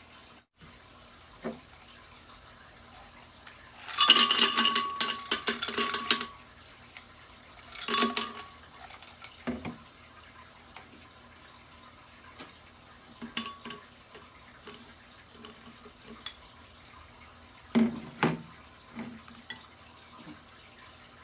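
Ice cubes dropped into a glass blender jar, clattering and ringing against the glass for about two seconds, with a second shorter clatter soon after. Later come a few duller knocks as banana slices are dropped into the jar.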